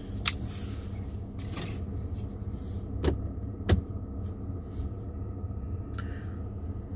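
A few sharp plastic clicks and knocks as an Echo Auto and its air-vent mount are handled and fitted at a car's air vent, over a steady low rumble of the car.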